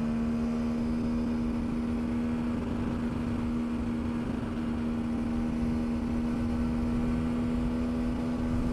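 2012 GasGas EC300's two-stroke single-cylinder engine running at a steady speed on the move, a constant hum that holds one pitch, with a low rumble underneath.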